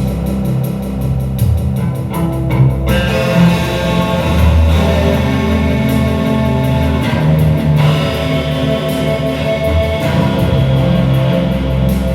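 Guitar-led rock music playing steadily, the sound filling out and growing brighter about three seconds in.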